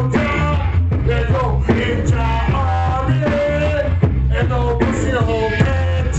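Music: a song with a heavy, repeating bass line and a held melody line over it, and no clear words.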